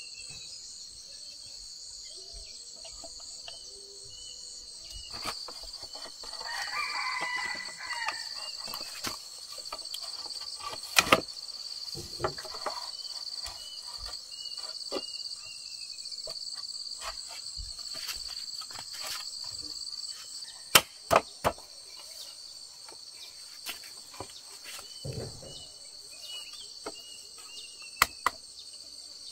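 Steady chirring of an insect chorus, with a few sharp knocks scattered through, some in quick pairs or threes, the loudest about eleven seconds in and again around twenty-one seconds.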